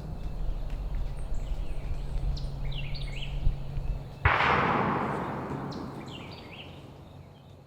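Songbirds chirping in short falling notes, then about four seconds in a single loud shotgun blast whose echo rolls away over the next few seconds.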